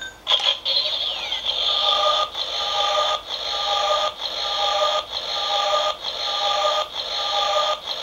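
Kamen Rider Blade Blay Buckle toy belt (Bandai Legend Rider Series) switched on and playing its electronic sound effect through its small built-in speaker. The sound is tinny, with a falling sweep near the start, then a looping pattern that repeats a little under once a second.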